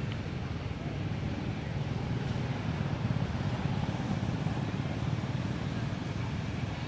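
Road traffic passing: motorbikes and cars going by, a steady rumble that swells a little a few seconds in.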